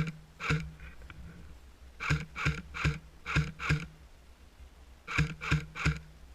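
Airsoft replica firing single shots in quick strings: two pops, a pause, five pops, a pause, then three pops, each pop a sharp crack about 0.4 s after the last.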